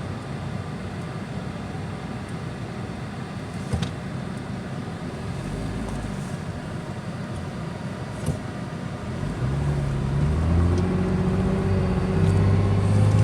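Car driving, heard from inside the cabin: a steady road rumble with a couple of light knocks, then about nine seconds in the engine pulls harder and grows louder, its pitch rising slowly.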